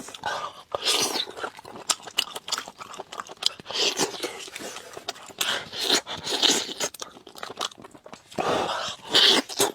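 Close-up chewing and crunching of chicken, wet mouth noises with many short sharp crunches and clicks.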